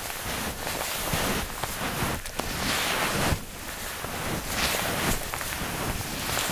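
Footsteps through deep powder snow on homemade wooden-sapling Roycroft snowshoes, a swishing crunch about once a second, with wind buffeting the microphone.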